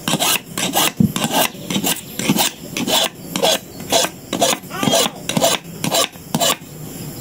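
Hand file rasping back and forth on the tip of a homemade fishing spear, sharpening the point, in quick regular strokes of about two a second that stop near the end.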